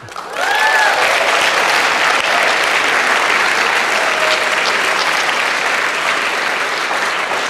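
Audience applauding, starting at once and continuing steadily, with a short whoop about half a second in.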